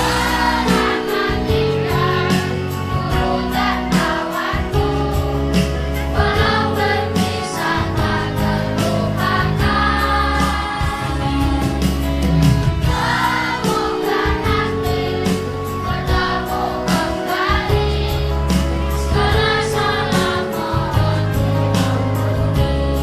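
A children's choir of sixth-graders singing a farewell song in unison over a backing track with sustained bass and a steady beat.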